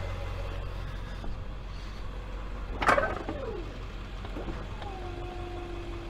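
Tow truck engine idling with a steady low hum. About three seconds in comes a single sharp metallic clank, its ringing sliding down in pitch, and near the end a steady two-note whine sets in.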